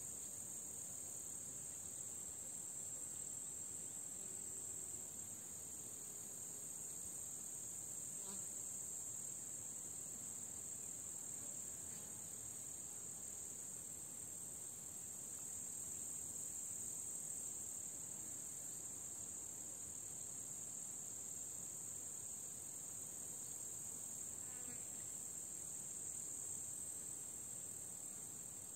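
Chorus of meadow insects chirring: one steady, high-pitched drone that holds without a break.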